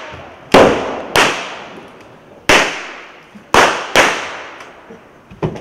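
Blank gunshots in a stunt-show gunfight: five sharp cracks, each trailing off in an echo, the last two half a second apart. A smaller pop comes near the end.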